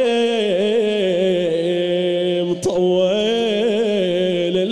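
A man's voice chanting a Shia elegy (nai) unaccompanied, holding long drawn-out notes with wavering ornaments in place of words. There is a brief break with a sharp click about halfway through.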